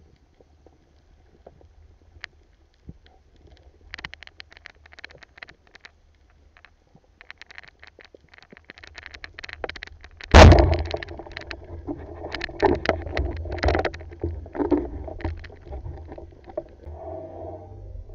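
Band-powered speargun fired underwater: a sudden loud thump about ten seconds in, followed by several seconds of rumbling, rattling and knocking as the spear and line settle. Before the shot there are only scattered faint clicks.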